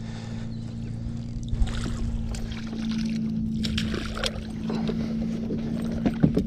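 Water splashing and a pike thrashing as it is scooped into a landing net beside a kayak, with knocks and clatter of the net's aluminium handle and gear against the kayak hull, densest in the middle and with two sharp knocks near the end. A steady low hum runs underneath throughout.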